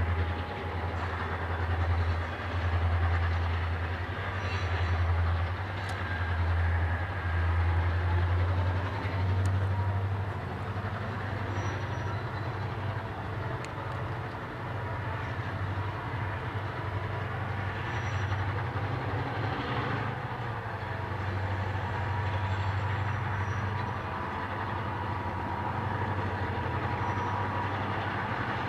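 EMD diesel-electric locomotives working a heavy train, a deep engine throb that swells and fades for the first ten seconds or so, then holds steadier.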